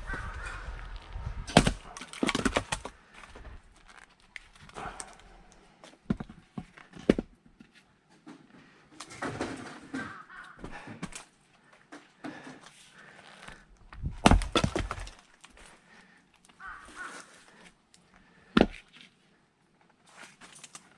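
Firewood being split by hand: a series of sharp cracking strikes a few seconds apart as the splitting tool hits and the wood breaks, with breathing between the blows.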